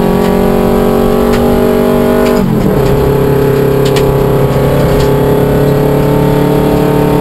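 Subaru Impreza rally car's flat-four engine accelerating, heard from inside the cabin. About two and a half seconds in there is a gearchange: the engine note drops and then holds steady.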